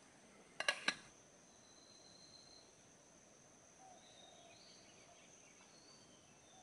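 Quiet outdoor ambience: a faint, steady, high insect drone with a few faint short bird-like chirps. Early on it is broken by a quick cluster of three sharp knocks.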